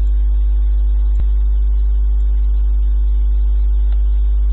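Steady electrical mains hum, a low buzz with a stack of overtones, picked up by the recording microphone. A single short click comes about a second in.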